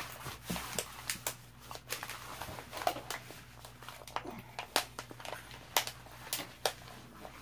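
A rolled diamond-painting canvas being pressed and smoothed flat by hand on a table: irregular soft rustles and light crackles of the stiff sheet.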